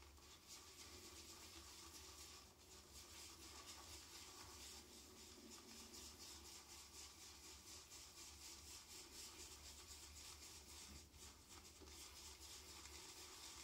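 Synthetic-fibre shaving brush whisking shaving cream into lather in a bowl: faint, quick, rhythmic swishing strokes that stop suddenly at the end.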